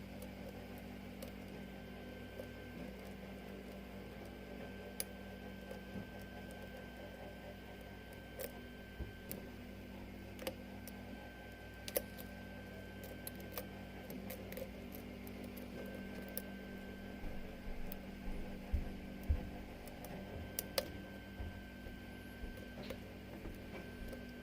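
Faint, irregular small clicks and light scraping of a lock pick and tension wrench working the pins of a six-pin Falcon pin-tumbler lock, over a steady low hum.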